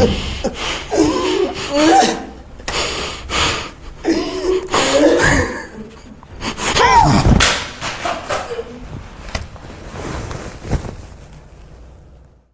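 A person sobbing in uneven bursts with gasping, wavering breaths, fading away near the end.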